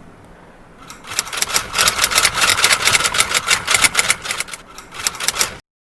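Typewriter typing: a rapid run of key clacks, several a second, starting about a second in and cutting off abruptly near the end.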